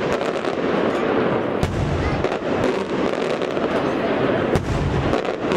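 Aerial firework shells bursting overhead: two deep bangs, about a second and a half in and again near the five-second mark, with many smaller sharp pops and crackles between them.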